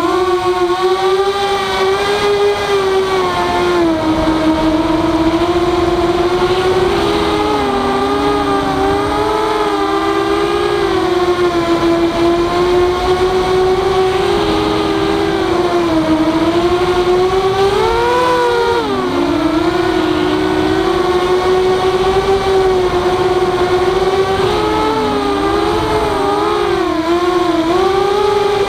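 Walkera F210 racing quadcopter's brushless motors and propellers whining, recorded on board. The pitch rises and dips with throttle and splits into two close tones now and then during manoeuvres.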